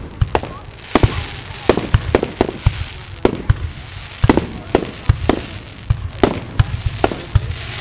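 Aerial firework shells bursting in a rapid, irregular series of sharp bangs, about three a second.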